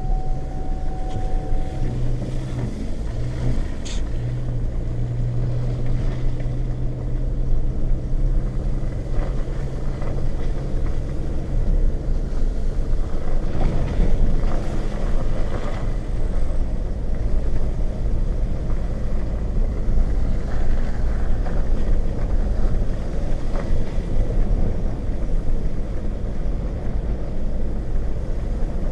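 Pickup truck driving slowly along a rutted dirt road, heard from inside the cab: a steady engine hum and the rumble of tyres on the rough track, with a few knocks as it goes over bumps. The road rumble grows a little louder about twelve seconds in.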